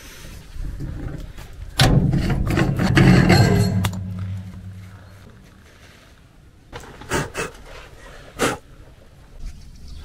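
The Ural 375D truck's V8 petrol engine turning over briefly on the starter. A loud churning starts suddenly about two seconds in and winds down over the next two seconds. Two short knocks come later.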